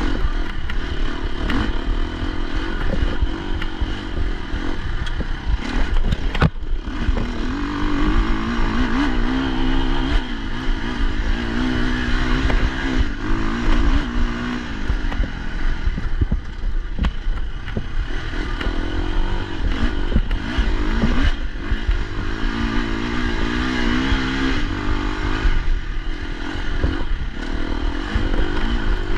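Dirt bike engine under hard riding on a rough trail, its pitch rising and falling as the throttle is worked. Knocks and rattles from the ground and bike run through it, with a sharp knock about six seconds in.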